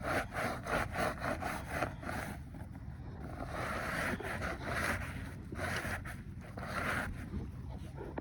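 Rag scrubbing grime off the inside of an HVAC unit's sheet-metal panel. Quick back-and-forth strokes, about three a second, give way after two seconds to slower, longer wipes about once a second, over a steady low rumble.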